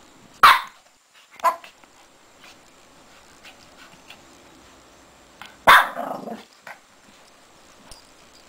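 Shih Tzu puppy barking in play, three times: a sharp bark about half a second in, a weaker one a second later, and a longer bark near the six-second mark that drops lower as it trails off.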